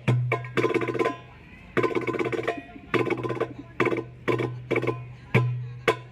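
Hadroh percussion ensemble played through a PA system: rebana frame drums and a deep bass drum striking in quick rhythmic runs, each broken off by a short pause. The last run stops near the end.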